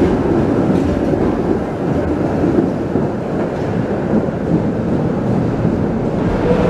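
Articulated tram pulling out of an underground station and running off down the tunnel: a steady, low noise of wheels on rail. A whine rises in near the end.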